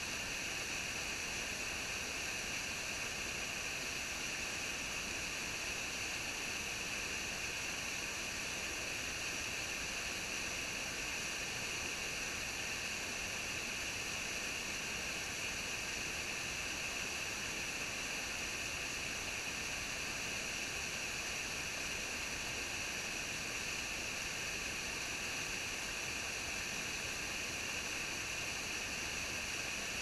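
Small waterfall cascading over boulders into a rocky pool: a steady, even rush of falling and splashing water, with a hiss-like edge.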